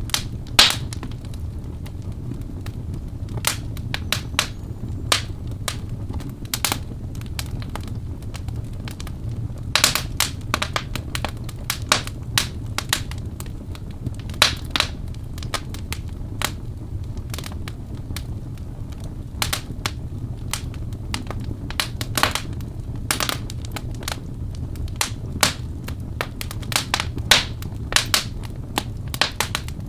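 Wood fire burning: a steady low rumble of the flames with frequent irregular crackles and pops, a few of them louder.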